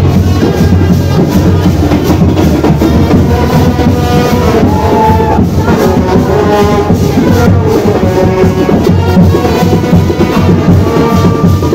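Brass band playing loud music, horns holding the tune over a dense, steady backing.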